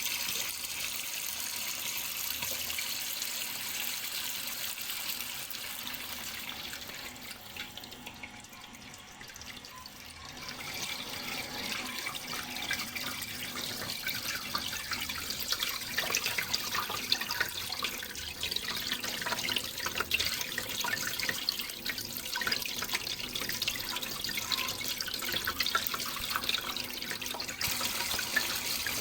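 Running water, a continuous splashing flow. It turns quieter about a quarter of the way in, then comes back fuller with more fine splashing detail.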